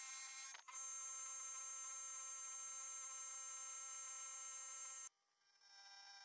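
Sieg SX2P milling machine's end mill cutting aluminium: a steady high-pitched whine with many overtones. It breaks off abruptly about five seconds in and comes back at a different pitch.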